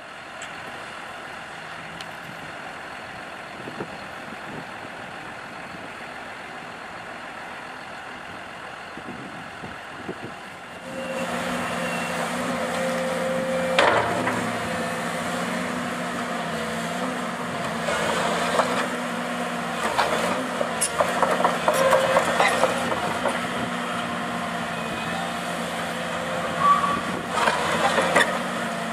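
Tracked excavator's diesel engine running steadily, growing louder about eleven seconds in, with irregular metallic clanks and knocks from the machines working concrete rubble.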